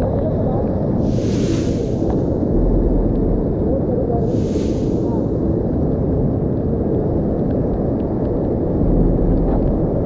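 Loud, steady rush of a rain-swollen flood torrent pouring over rocks right beside the microphone, with two brief hissing surges in the first half.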